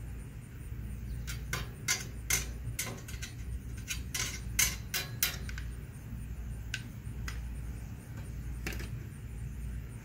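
E6013 welding rod tapped and scratched against the steel step frame to strike an arc, giving a quick run of sharp metallic clicks in the first half and a few scattered ones later, never catching into a steady arc. The cause is poor electrical contact: corroded jumper-cable clamps and paint on the work.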